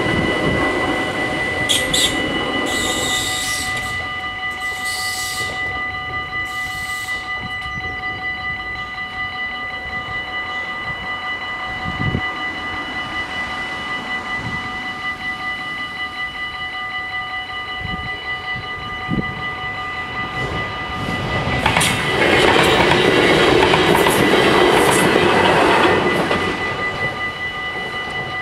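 The last cars of an NS ICMm (Koploper) intercity train rumbling over a Dutch level crossing in the first few seconds, while the crossing's warning bells ring steadily throughout. A louder passing noise swells for about four seconds near the end.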